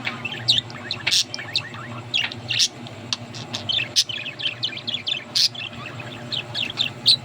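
Pet budgerigars chirping and chattering: a continuous stream of short, quick chirps and warbles, over a low steady hum.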